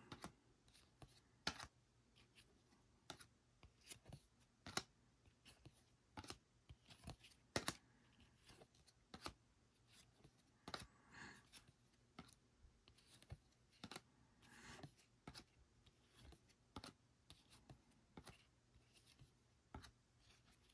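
Faint clicks and soft swishes of glossy chromium trading cards being flipped through by hand, one card slid from the front to the back of the stack about every second.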